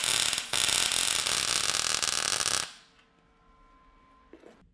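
Arc welder tack-welding a steel engine mount to the mower frame: a loud crackling hiss, broken briefly about half a second in, that stops after about two and a half seconds.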